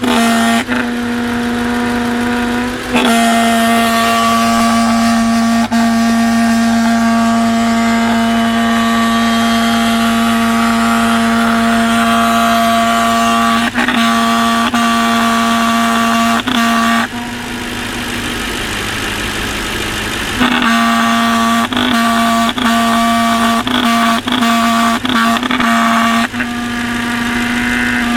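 Audi S8's AVP engine making the strange noise its owner is asking about: a loud, steady hum-like tone of one fixed pitch. It cuts out briefly several times, drops away for a few seconds past the middle, then comes back.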